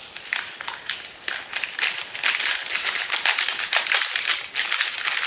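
A utensil stirring and beating matzo ball batter (eggs, canola oil and matzo meal mix) in a glass bowl: a rapid, irregular run of clicks and scrapes against the glass.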